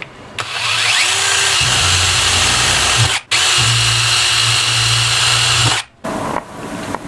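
Power drill spinning a 3/8-inch paddle bit through PVC pipe, running steadily in two runs with a short break about three seconds in, then stopping near the end.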